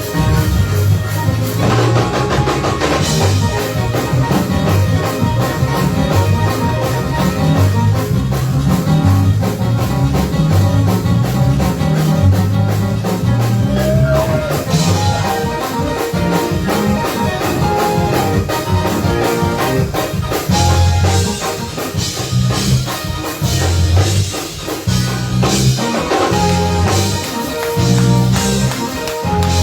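Live church band playing a praise break: drum kit and bass guitar with other instruments in a steady, driving groove.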